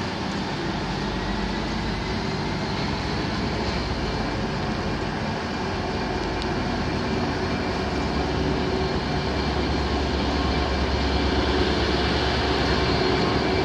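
Class 66 diesel locomotive 66092 approaching along a station platform, its EMD two-stroke V12 diesel engine running with a steady sound that grows gradually louder as it nears.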